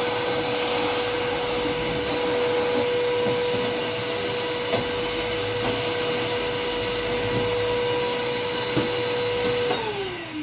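A small electric blower motor, like a hair dryer or vacuum cleaner, runs steadily with a constant whine. Near the end it is switched off and its pitch falls away as it spins down.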